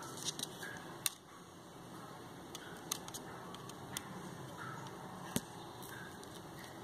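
Light, sharp clicks and taps from small camera parts being handled during lens disassembly, a handful spread a second or more apart, over a steady hiss.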